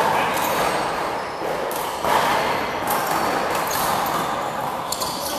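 A small rubber handball smacking against the wall and floor several times during a rally, over a steady noisy hubbub in a large hall.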